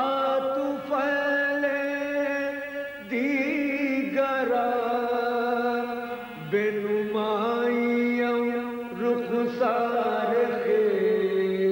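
A voice chanting a devotional hymn in long, drawn-out notes without clear words. The pitch steps to a new note every second or two, with wavering ornaments on some notes.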